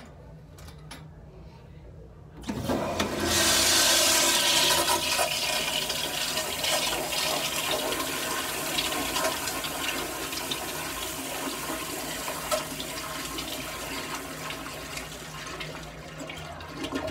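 Sloan Royal flushometer valve flushing a 1974 Kohler Bardon toilet bowl. A sudden rush of water comes in about two and a half seconds in and is loudest for the first couple of seconds. It then settles into a steady running flow that eases off slowly and stops near the end.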